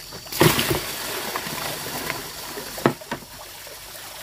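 Water running and splashing, starting about half a second in, with a few sharp knocks, the loudest near the start and near the end.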